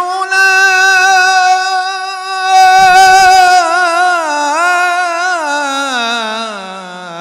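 A solo male voice chanting an Arabic devotional ebtehal, holding one long high note for about four seconds, then winding down through melismatic ornaments to a much lower pitch near the end.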